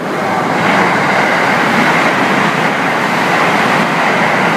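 Limited express Thunderbird electric train running past along the platform: a loud, steady rush of wheels and motors that swells about half a second in as the cars go by.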